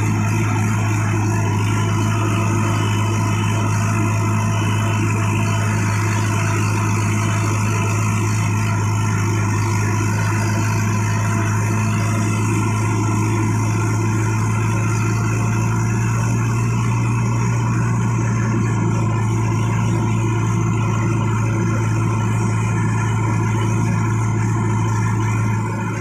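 Tractor diesel engine running steadily as the tractor drives along, heard close up from the driver's seat, with a strong, even low hum. The sound eases slightly near the end.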